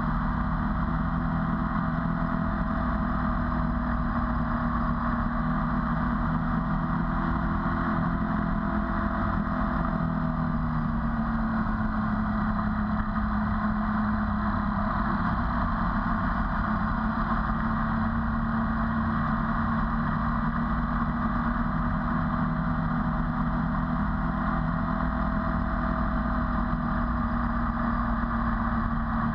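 Ducati 848's 90-degree L-twin engine running steadily at road speed under wind rush, its note shifting slightly about ten seconds in.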